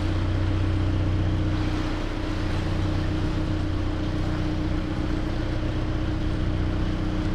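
Narrowboat's diesel engine running steadily at cruising speed, an even low hum with no change in pace.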